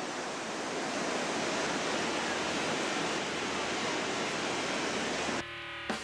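Steady rushing of river whitewater on the high-running New River. Music begins near the end.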